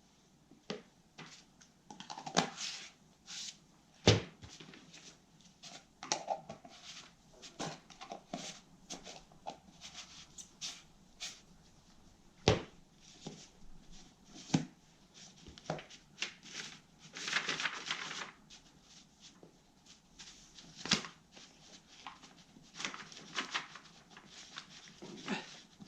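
Spatula work in thick two-part epoxy putty: irregular taps and clicks, a few sharper knocks, and a longer scraping stretch about two-thirds of the way through.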